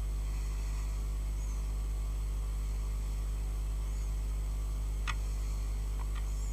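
Steady electrical mains hum, with two faint clicks near the end.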